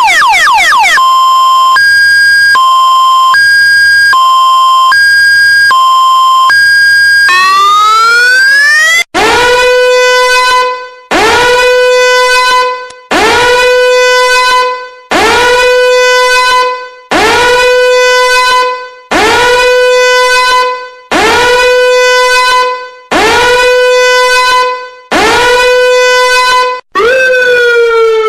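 A run of electronic siren patterns. It opens with a fast yelp, then a two-tone hi-lo that switches about every three-quarters of a second, then a rising wail. Next comes a short whoop that rises and holds, repeated about every two seconds, and it ends on a falling wail.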